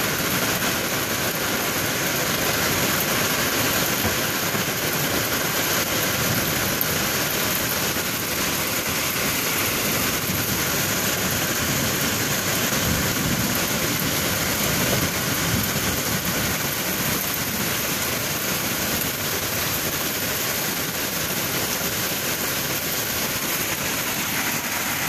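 Heavy hail and rain pelting down in a steady, dense roar, with a brief low swell about halfway through.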